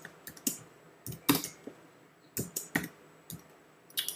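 Keys tapped on a computer keyboard: a scattering of separate, irregular keystrokes while a short layer name is typed.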